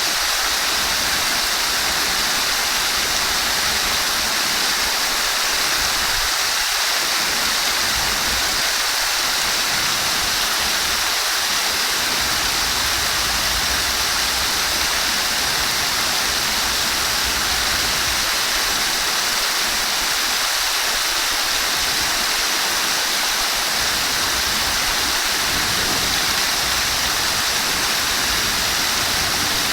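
Flowing water running in a steady, even rush, with no change in strength.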